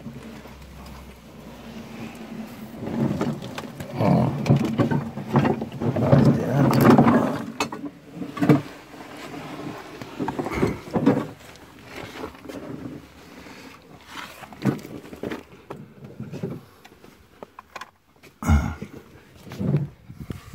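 A man's effortful breathing and grunts, heaviest in the first half, with scraping, sharp knocks and handling noise against rock as he moves through a narrow rubble-floored cave passage.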